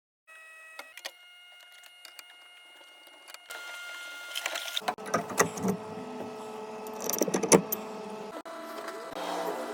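A small electric motor whining steadily, with clicks and knocks of tools and parts being handled; it grows louder and fuller about five seconds in.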